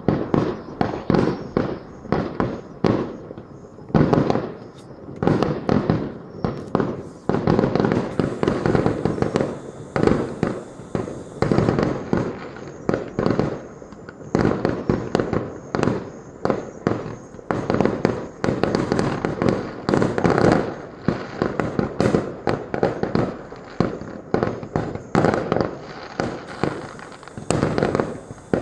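Fireworks display: a dense, continuous barrage of aerial shell bursts and crackling reports, several bangs a second with echoing tails.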